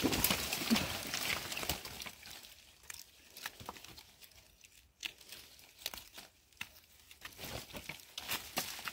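Irregular rustling and crackling with scattered small snaps and clicks, as of dry material being handled or moved through. It is busier in the first couple of seconds and again near the end, and sparser in between.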